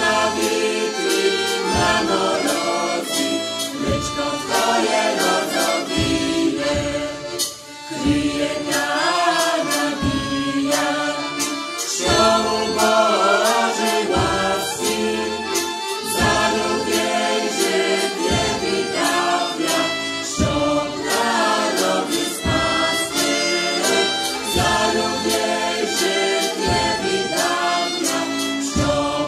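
Mixed folk choir of men's and women's voices singing a folk song in harmony, with a low beat recurring every second or two underneath.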